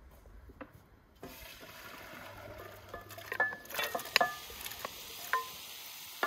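Diced potatoes scraped with a wooden spoon from a glass bowl into a steaming pot of borsch, the pieces dropping in against a steady hiss. Several sharp knocks of the spoon and bowl, some with a brief ring, come in the second half.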